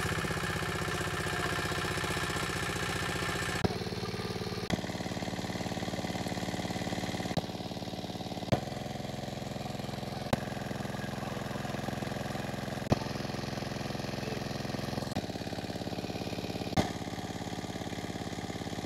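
Small engine-driven water pump running steadily while draining a pond through a hose, its tone shifting a few times. Several sharp knocks stand out over the drone.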